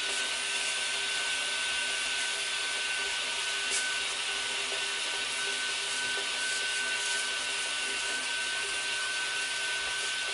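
Vacuum cleaner running steadily with a constant high whine, its wand sucking up dust and debris from the bare floor screed where parquet boards have been lifted.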